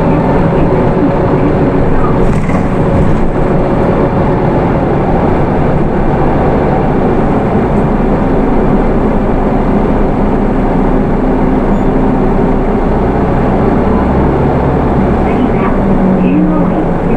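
Inside the cabin of a Hino Rainbow II route bus with a four-cylinder Isuzu 4HK1 diesel, running under way. The engine hums and road noise is steady.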